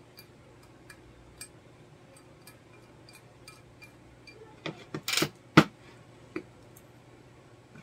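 Faint clicks about twice a second, then a short run of knocks and a brief scrape around five seconds in, with the loudest sharp knock just after and one more a moment later, as the EPS module's metal case is handled and shifted on the workbench.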